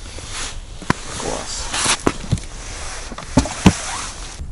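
Rustling close to the microphone with about five sharp clicks and knocks, the two loudest near the end, as an ice angler handles a small perch and his fishing gear.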